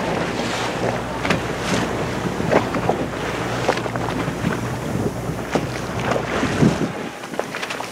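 Boat motor running under way, with water rushing and splashing and wind buffeting the microphone. The motor's low hum drops away about seven seconds in.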